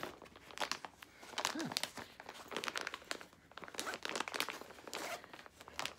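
Plastic packaging crinkling and rustling as it is handled and opened, a run of irregular crackles.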